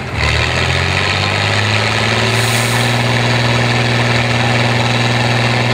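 IFA L60 4x4 trial truck's diesel engine running as the truck crawls along a steep slope. The revs waver in the first second or so, then hold steady.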